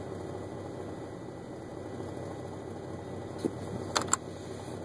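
1999 Chevy Silverado's engine running steadily, heard from inside the cab. About four seconds in, two sharp clicks come close together as the dash 4WD selector button is pressed to shift the transfer case out of 4-low.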